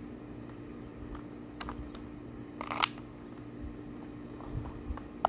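Pistol handling: a few short, sharp clicks as the gun is drawn from an appendix holster, held at aim and lowered, the loudest about three seconds in, over a steady low hum.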